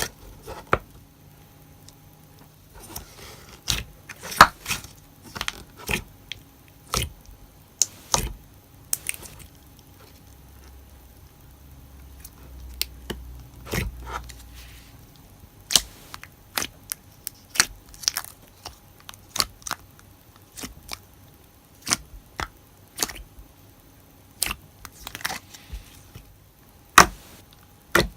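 Hands squeezing and stretching a glossy slime, giving irregular sharp pops and clicks as air bubbles burst, with softer squishing in between.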